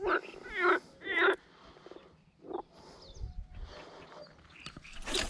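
Frogs croaking: three loud croaks in the first second and a half, then a few fainter ones, and a sharp click near the end.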